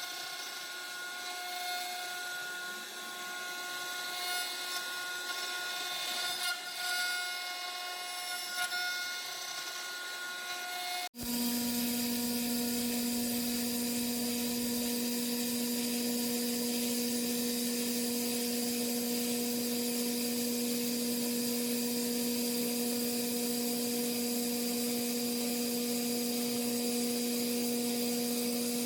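CNC woodworking machine cutting wood: a steady spindle whine over the noise of the cut. About eleven seconds in the sound cuts abruptly to a different steady machine hum, lower in pitch, with hiss.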